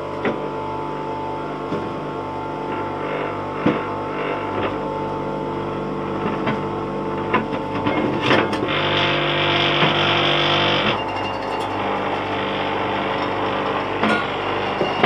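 Small bench grinder running with a steady motor hum while a rusty square nail is held against the spinning wheel, giving a few short knocks and scrapes. From about eight and a half seconds to eleven seconds there is a harsher, louder grinding rasp as the nail is pressed harder onto the wheel.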